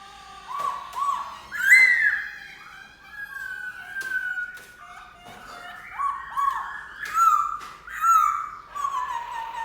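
Black-throated laughingthrush singing a varied run of loud, clear whistled phrases: arching notes, some given in quick pairs, and longer notes that step and glide down in pitch.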